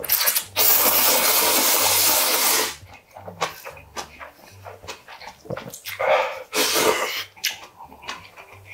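A man slurping spicy instant ramen from a small bowl: one long slurp of about two seconds, then a shorter slurp about a second long, with small wet chewing clicks in between.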